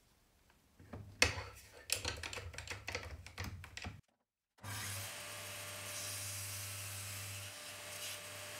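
Clicks and knocks of clamps and wooden parts being handled and tightened. After a sudden cut, a steady hiss with a low hum follows.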